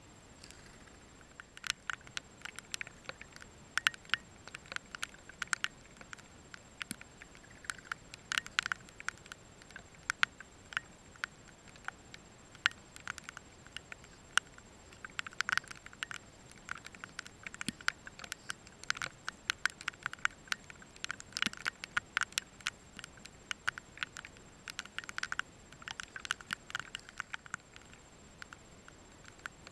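Rainbow lorikeets at work on a dead lorikeet in the grass close by, making irregular quick clicks and crackles that come in little clusters throughout.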